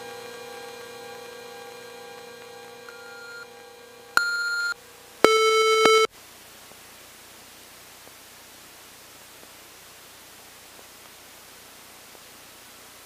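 Steady electronic hum in the helicopter's cockpit audio, then two short, loud electronic beeps about a second apart, the second lower and louder. The sound then cuts off suddenly to a faint steady hiss.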